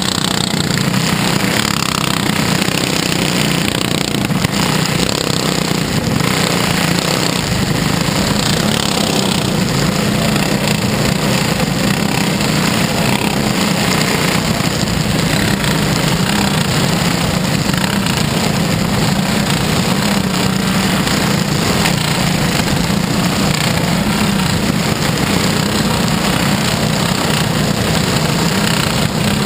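Dirt-track race car engine running hard at racing speed, heard from the cockpit: a loud, steady, rattly drone that hardly changes in level.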